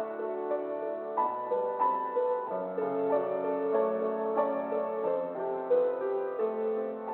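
Instrumental piano music, slow notes over held chords.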